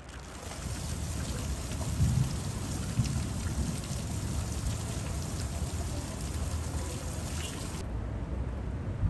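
Steady heavy rain hissing down on a flooded road, over a low rumble. Near the end the hiss of the rain drops away suddenly and the rumble carries on.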